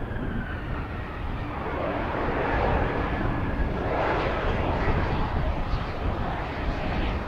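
Bombardier Global 7500 business jet's GE Passport turbofan engines running as the jet rolls along the runway: a steady jet noise that swells a little about halfway through.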